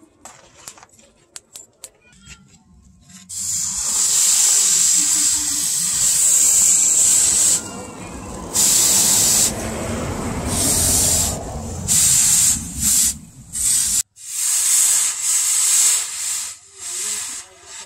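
Red-hot machete-style blade of chainsaw bar steel being quenched in a water trough to harden it: a loud hissing and boiling starts about three seconds in, after a few faint clicks. Near the end it breaks into short spells of hiss.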